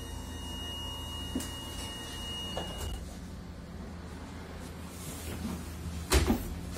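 Passenger doors of an Iveco Dekstra LF38 CNG minibus closing: a steady high warning tone sounds while they close and cuts off about three seconds in, with a couple of clicks from the door mechanism. The CNG engine idles steadily underneath, and a loud knock comes near the end.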